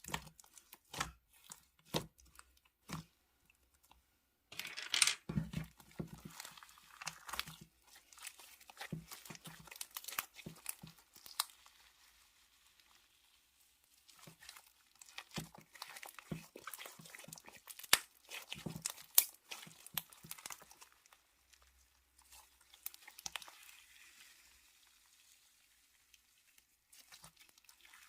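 Slime being handled: a few sharp pops about once a second at first, then longer stretches of crackling and crunching as it is pressed and pulled.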